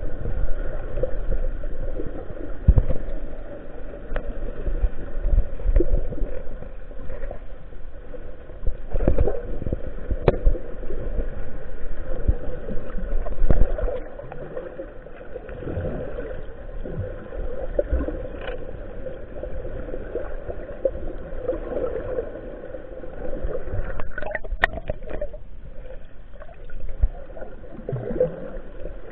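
Muffled underwater water noise on a submerged action camera: gurgling and sloshing with low rumbles, and a few sharp knocks, a cluster of them near the end.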